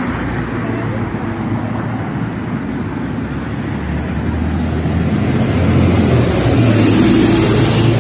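Road traffic with a city bus's engine rumbling closer, growing louder over the second half. A thin, high whine falls in pitch near the end.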